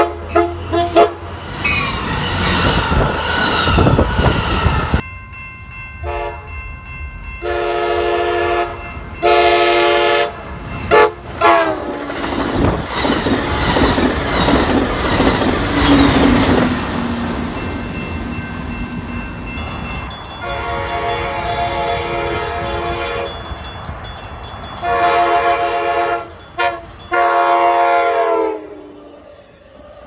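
Amtrak Pacific Surfliner train horns sounding: a few short toots, then a run of long blasts, with the rumble and clatter of a passing train in the middle and more long blasts near the end.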